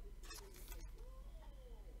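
Faint crinkling and squeaking of a thin plastic card sleeve as a trading card is slid into it, with a few crinkles in the first second.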